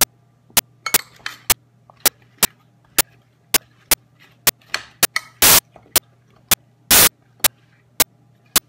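Sharp clicks ticking evenly about twice a second over a low steady hum, with two louder, longer knocks a second and a half apart past the middle.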